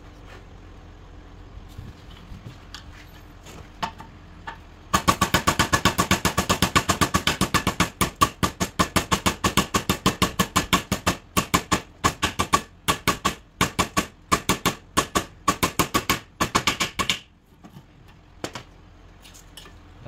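Hammer rapidly striking steel welding rods on a vise's anvil face, knocking the flux coating off the electrodes. It is a run of sharp metallic blows, several a second, starting about five seconds in and stopping a few seconds before the end.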